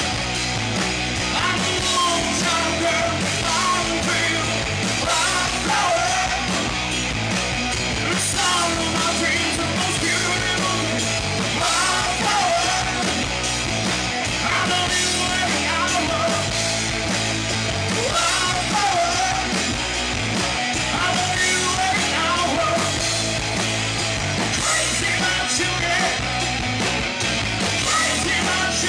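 Live rock band playing: a male singer over electric guitars through Marshall amplifiers, bass and drums, loud and without a break.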